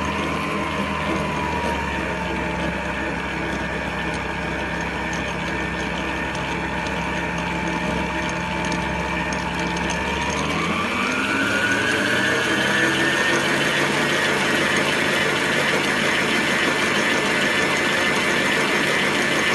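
Electric stand mixer running with its beater turning through cake batter in a steel bowl: a steady motor whine that climbs to a higher pitch about ten seconds in as the speed goes up, then holds.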